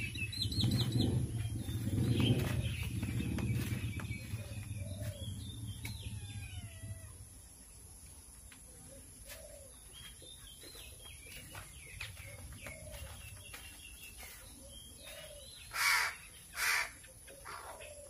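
A crow gives two loud, harsh caws near the end, the begging calls of a hungry pet crow waiting to be fed. Before that, a low rumble fades out over the first several seconds under faint small-bird chirps.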